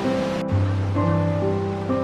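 Background music with held notes that change every half second or so, over the steady rush of a waterfall in heavy flow.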